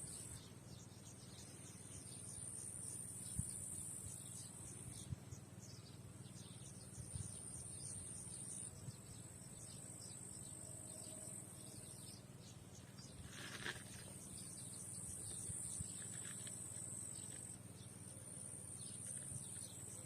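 Outdoor ambience: a steady, high insect buzz runs throughout, with many short, quick bird chirps over it. There is a brief louder call about two-thirds of the way through and another near the end.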